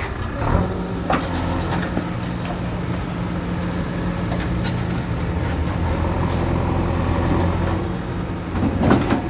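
Bulldozer's diesel engine running steadily under load while demolishing a shop, with scattered knocks and clatter of breaking masonry and a louder crash near the end.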